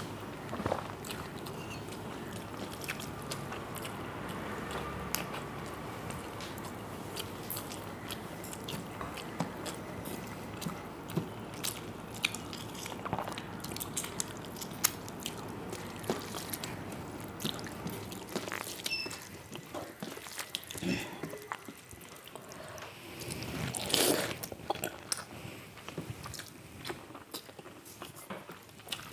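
Close-miked eating sounds: a person chewing panta bhat (rice soaked in water) and fried food, with many short wet clicks and smacks of the mouth and a louder stretch near the end.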